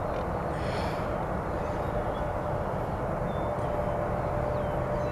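Twin-engine jet airliner at takeoff power, accelerating down the runway and lifting off. A steady rumble of jet noise with a thin, steady whine in it.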